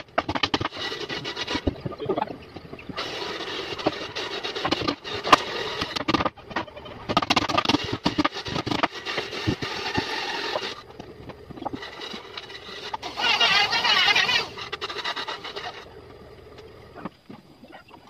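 Wood being worked with a tool in long scraping passes, each lasting a few seconds with short pauses between them. About thirteen seconds in there is a brief, louder wavering burst.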